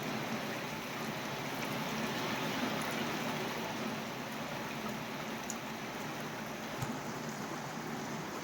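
Heavy thunderstorm rain coming down steadily in a dense, even downpour.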